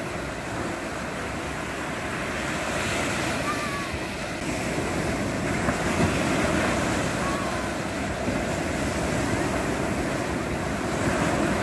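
Sea surf breaking and washing up the sand in a steady rush, swelling and easing with each wave, with wind buffeting the microphone.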